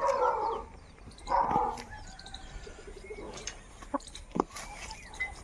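A chicken in a wire-mesh coop gives two loud squawks in the first two seconds, followed later by a couple of sharp knocks.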